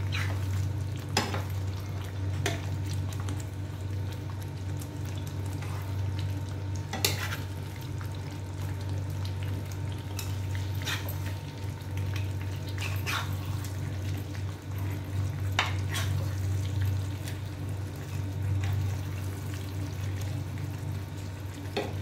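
Chicken pieces cooking in thick, oily masala gravy in a pan over a very low gas flame, with a quiet frying sizzle. A spoon scrapes and taps against the pan now and then as masala is spooned over the pieces. A steady low hum runs underneath.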